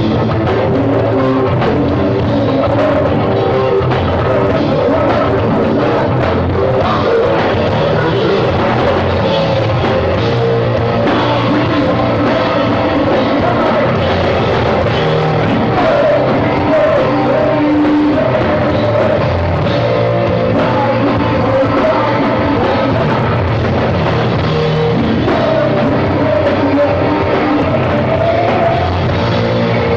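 A rock band playing live and loud, with a singer over drums and instruments.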